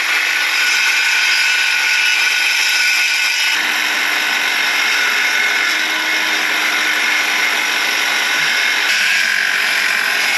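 Circular saw ripping a shiplap board lengthwise, running steadily through the cut, with a leaf blower running alongside to blow the sawdust away.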